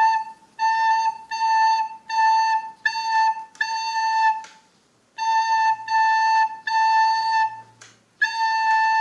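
Soprano recorder playing a simple tune: one high note sounded over and over in short, evenly paced tones, with a brief pause about halfway through.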